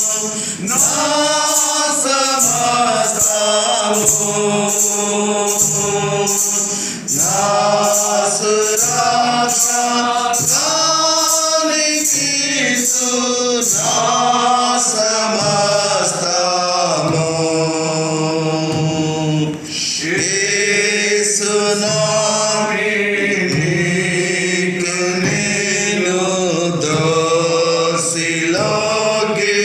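A Telugu hymn sung from the church hymn book in slow, drawn-out phrases, with a light steady beat of high ticks a little under twice a second through the first half.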